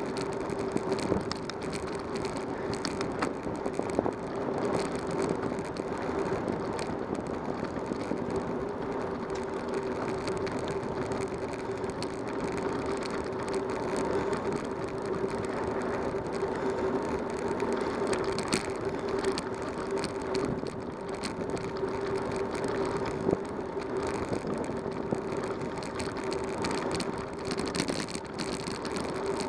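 Bicycle rolling along a paved road: steady tyre and rolling noise with a constant hum, broken by scattered small clicks and rattles.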